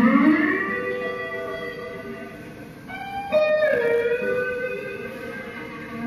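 Live instrumental music, no speech: held notes that slide up in pitch at the start and fade, then a second loud phrase about three and a half seconds in that slides down.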